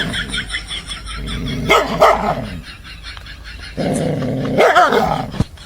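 A dog barking and growling in several short bouts.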